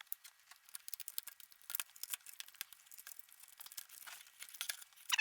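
Light, rapid clicks and crackles of a monitor's plastic casing and internal parts being handled and taken apart, ending with a short high squeak.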